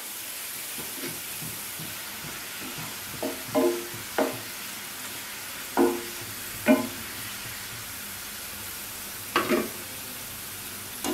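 Sliced onions sizzling steadily in hot oil in a pan, the burner just switched off, as they brown into crisp fried onions (birista). A spatula stirs them, scraping against the pan in about six short strokes, most of them between about three and seven seconds in, with one more near the end.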